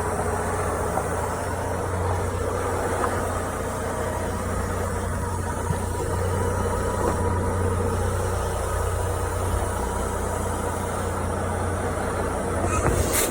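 Semi truck's diesel engine running steadily with a low hum, a short burst of hiss right at the end.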